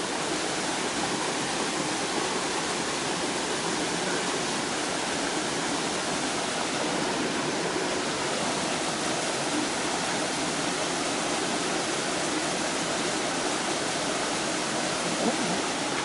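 Steady rush of water from a rocky mountain stream, an even unbroken noise with no rises or breaks.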